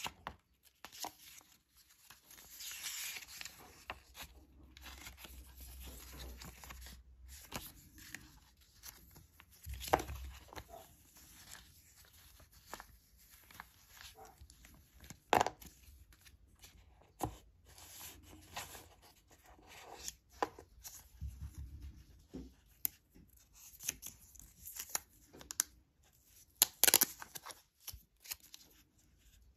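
Paper leaflets and card inserts from an AirPods 3 box being unfolded, leafed through and shuffled by hand, rustling and flapping. A few louder snaps of paper and packaging stand out, one near the middle and one near the end.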